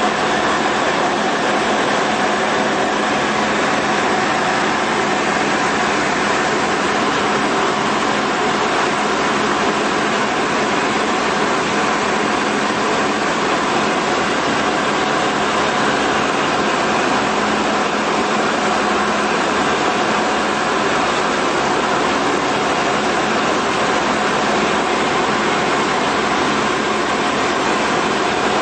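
Tecnam Sierra light aircraft in cruise, heard inside the cockpit: the Rotax 912 four-cylinder engine and propeller running steadily at constant power.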